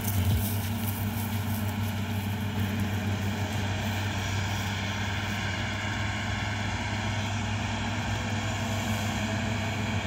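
Steady low engine drone of a New Holland TC5.30 combine harvester running under load while cutting wheat, with an even, unchanging hum.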